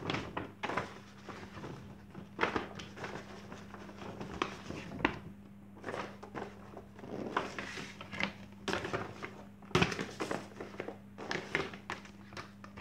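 A large paper poster being folded by hand, with irregular rustling and crinkling and a few light knocks as it is handled and set down. A faint steady low hum runs underneath.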